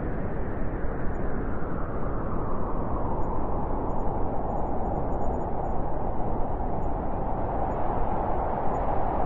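Blizzard wind blowing steadily, a dense rushing noise with a howling tone that grows a little stronger in the second half.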